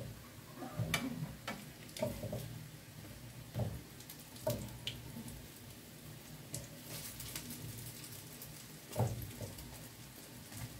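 Zucchini fritters sizzling as they fry in hot oil, with several sharp knocks scattered through.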